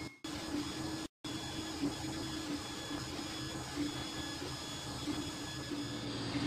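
Creality Ender-3 3D printer running a print: its motors whine in a pitch that wavers as the print head moves, over a steady fan hiss. The sound cuts out briefly twice, right at the start and again about a second in.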